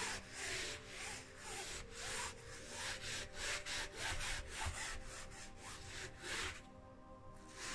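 A hand rubbing a wadded towel back and forth over the taut back of a stretched canvas, in quick strokes about two or three a second with a brief pause near the end. The strokes press the canvas down onto the wet pour paint beneath it so the paint spreads between the two canvases.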